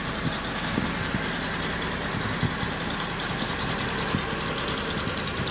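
Honda Civic FD engine idling steadily, with a few faint knocks over the running noise. The mechanic puts the noise down to a worn bearing in the A/C compressor pulley.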